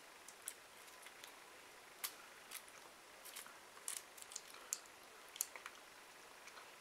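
Fingers picking and peeling open a small sticky sweet wrapper: faint, irregular crinkles and sharp little crackles, some in quick clusters.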